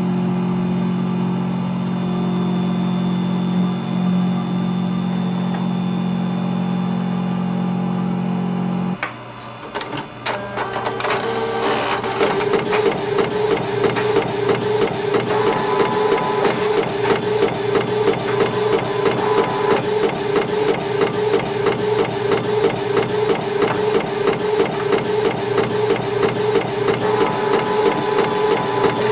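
A steady machine hum that cuts out about nine seconds in. From about twelve seconds a desktop printer runs its print mechanism: a rapid, even mechanical chatter with a pulsing tone, about two beats a second.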